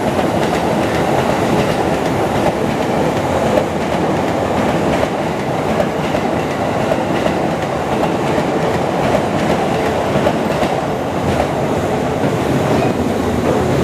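Electric commuter train running past close by, a steady noise of wheels on the track.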